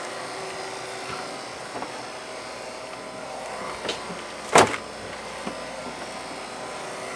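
Steady mechanical hum with a faint steady tone in it. A little past halfway a single sharp thump comes, a refrigerator door shutting.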